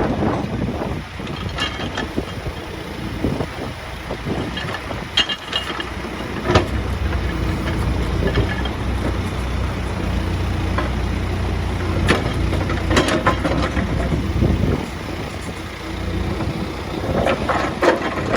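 Diesel engine of a Case 851EX backhoe loader running, louder from about six seconds in and easing off near fifteen seconds, with occasional short clanks over it.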